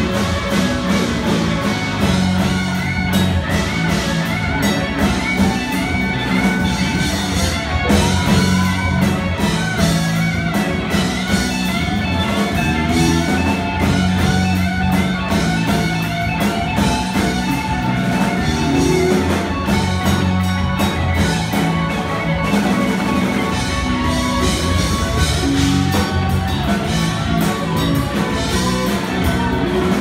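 Live rock band playing loud and without a break: several electric guitars over a drum kit and bass.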